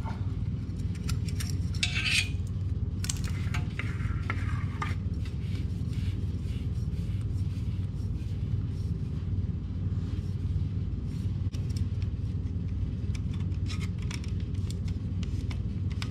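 Light metallic clicks and short scrapes of a hose clamp being handled and fitted around a motorcycle's spin-on oil filter, over a steady low hum.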